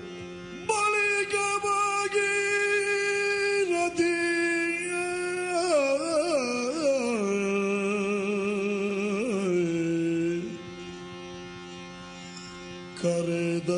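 Yakshagana bhagavata singing alone over a steady drone: long held notes that glide slowly between pitches with wavering ornaments. The voice drops away for a couple of seconds near the end, then comes back.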